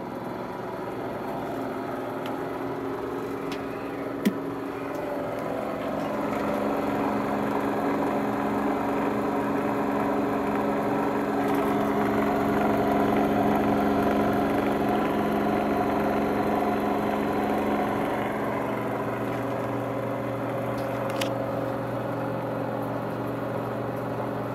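The motor and generator of a homemade Bedini-style pulse-motor rig running with a steady electric hum. It swells gently toward the middle and eases off a little, and there is one sharp click about four seconds in. The hum's tone shifts about three quarters of the way through.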